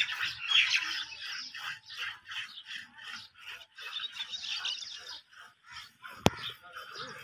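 Many small birds chirping continuously, with one sharp click about six seconds in.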